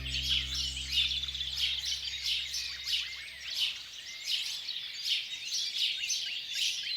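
Many small songbirds chirping and twittering at once, a dense, unbroken chorus of short high calls and trills. A held music chord fades out in the first few seconds.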